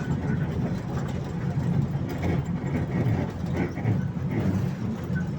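Park toy train running, a steady low rumble of its motor and wheels.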